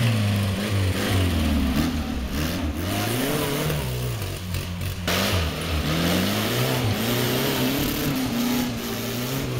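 Small home-built tractor's engine revving under load as it drives a dirt track and swings through a turn, its pitch rising and falling over and over.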